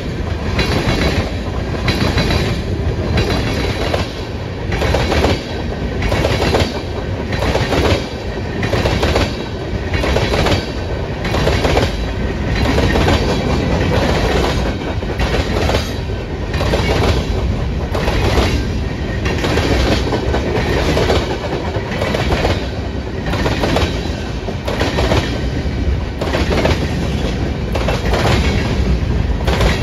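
Freight cars (tank cars and boxcars) of a passing mixed freight train rolling by close at hand. The wheels clickety-clack over the rail joints in a steady, regular rhythm under a continuous loud rumble.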